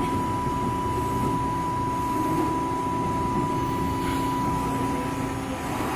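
LVD Strippit V20 CNC turret punch press running through its program: a steady low hum with a constant high whine over it, and no distinct punch strikes. Near the end the whine gives way to a slightly lower steady tone.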